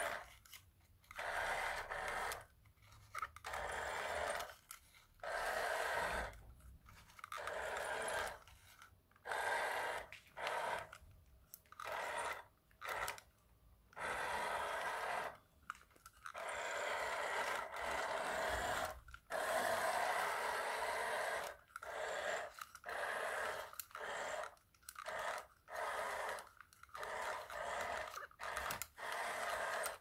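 Small electric motor and plastic gearbox of a wired remote-control toy Chevrolet Impala, running in repeated short bursts of grinding whirr that start and stop every second or two as the car is driven on and off.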